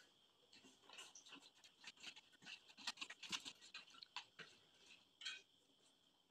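Faint wet slurping and chewing of juicy watermelon, with metal spoons scraping the flesh off the rind. It comes as a run of short smacks and clicks, thickest around the middle.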